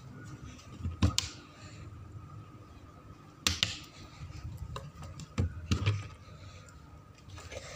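A handful of sharp knocks and clicks over a faint steady hum. The loudest come about a second in and three and a half seconds in, with two more close together past the five-second mark.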